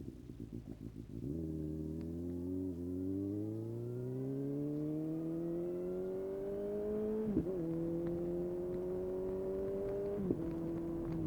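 Suzuki GSX-S750 inline-four engine through an open Yoshimura SQ11 exhaust with no dB killer and a decat pipe. It starts low and pulsing, then pulls hard with the note rising steadily. The revs drop sharply with a pop about seven seconds in and again near the end, each time settling to a lower note as the bike shifts up.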